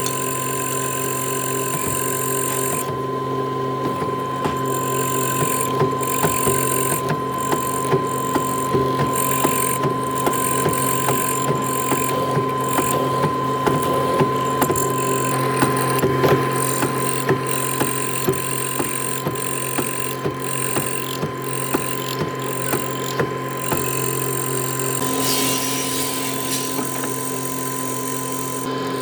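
A machine running with a steady hum of several constant tones, with frequent irregular clicks and ticks over it.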